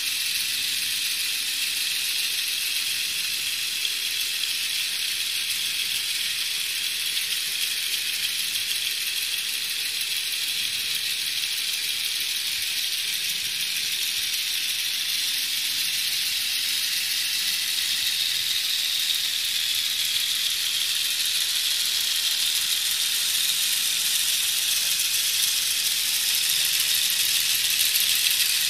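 Lego Technic electric motors and plastic gear trains whirring and rattling steadily as they drive the model airplane's propellers and tilting stand, getting slightly louder in the last few seconds.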